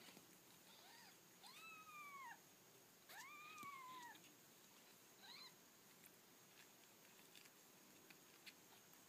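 Newborn kittens mewing: four high, thin cries that rise then fall in pitch, two of them drawn out for about a second, the last one short and coming about five seconds in.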